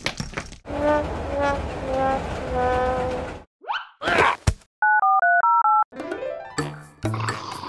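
Edited cartoon sound effects: a brief crash at the start, a short falling tune, a swooping whistle, then an electronic two-tone beeping that alternates rapidly for about a second, before background music comes in.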